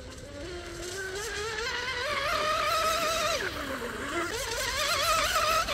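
Electric RC racing catamaran with an 1800 kV motor on 6S and a two-blade prop, running at speed. Its high motor whine wavers and climbs in pitch as it grows louder, drops away briefly about three and a half seconds in, then climbs again.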